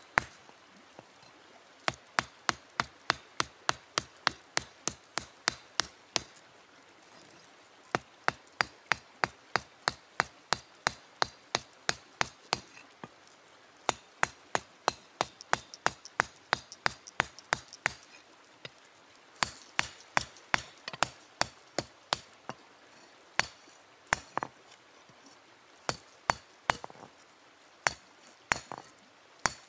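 Hand forging with a stone hammer: sharp blows struck on iron in quick runs, about two to three a second, with pauses of about a second between runs.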